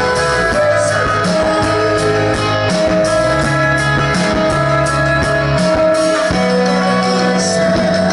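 Live rock band playing: guitar chords ring out in long held notes over a bass line that steps between notes, with regular drum and cymbal hits.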